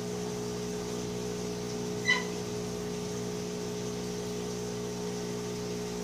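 Steady hum and hiss of a hot air rework station blowing heat onto a phone's back cover, with one short beep about two seconds in.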